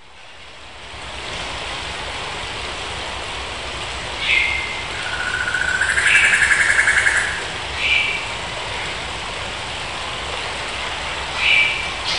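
Outdoor ambience fading in over the first second or so: a steady rain-like hiss with birds calling over it: short chirps about four seconds in, near eight seconds and near the end, and a louder trilling call in the middle that is the loudest sound.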